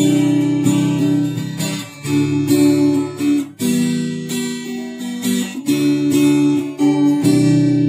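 Music: an acoustic guitar strumming chords, with the chord changing every second or so.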